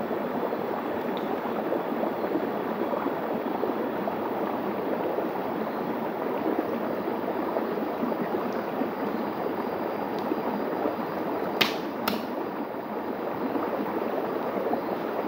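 Shallow forest stream running steadily over rock slabs. Two sharp clicks about half a second apart near the end.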